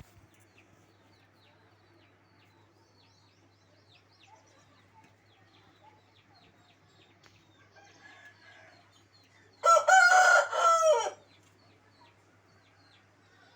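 A rooster crows once, loud, for about a second and a half near the end, with a brief dip partway through the call. Faint small-bird chirps run underneath.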